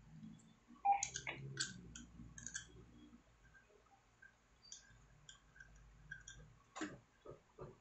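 Light metal clicks and taps as a nozzle is changed on the head of a Stanley hand riveter: a cluster of clicks about a second in, then scattered faint ones and a few more near the end.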